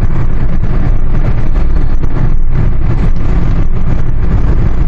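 Hyundai Sonata 2.0 GDI driving at highway speed, heard from inside the cabin: a steady low rumble of engine and road noise.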